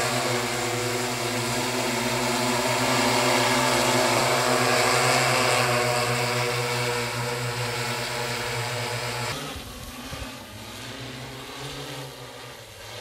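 Large multirotor crop-spraying drone's propellers humming steadily and loud at close range. About nine seconds in the sound drops suddenly to a fainter, more distant hum.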